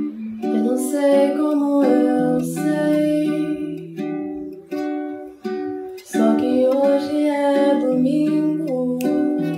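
A woman singing a melody while accompanying herself on a plucked string instrument, with chords ringing under the voice.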